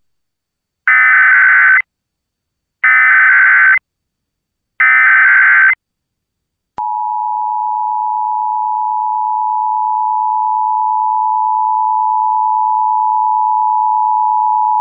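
Emergency Alert System SAME header: three identical screeching digital data bursts, each about a second long and a second apart. About seven seconds in, the EAS two-tone attention signal starts and holds steady. Together they open a Required Monthly Test alert.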